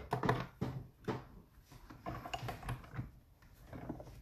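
Plastic plates clacking as they are stacked and fed into a hand-cranked Stampin' Cut & Emboss machine, then the crank turning to roll the sandwich through and emboss the cardstock in a 3D embossing folder. There are several sharp clacks in the first second, then softer rolling with light ticks.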